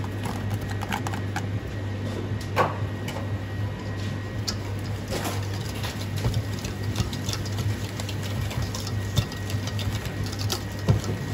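Wire whisk scraping and clinking against a stainless steel bowl, stirring chopped leek into a sesame-oil sauce in quick irregular strokes. Underneath is a steady low hum.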